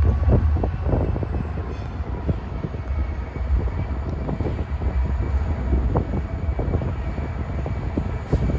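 Diesel locomotive of a slow-moving BNSF local freight train, a steady low rumble as it approaches.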